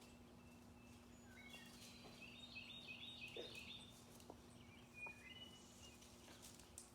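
Faint bird chirping: a run of short, quick notes about a second and a half in, and a few more near the end, over near silence with a low steady hum.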